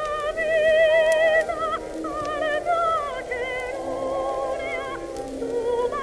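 Old 1920s popular-song recording in a passage without words: a lead melody held in long notes with wide, even vibrato over a soft accompaniment, muffled as if playing in another room. Faint crackles sit under the music.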